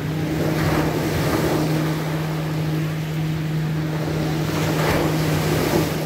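Sea surf breaking on a pebble beach: waves crash and wash up the shore, swelling about a second in and again near the end. A steady low hum runs underneath.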